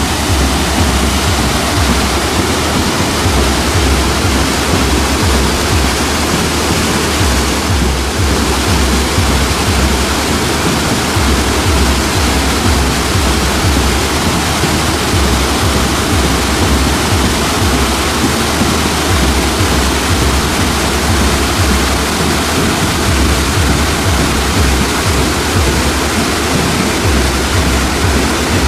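A large waterfall cascading down steep rock slabs: a loud, steady rush of white water with a deep rumble underneath.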